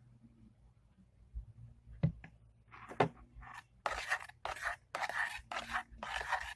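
Spoon stirring slime in a bowl as borax activator is worked in: a couple of sharp clicks, then scraping, squelching strokes about two a second for the last few seconds.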